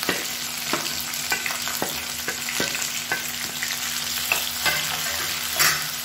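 Chopped onion sizzling in hot oil in a nonstick pan, stirred with a wooden spatula that knocks and scrapes against the pan many times over the steady frying hiss.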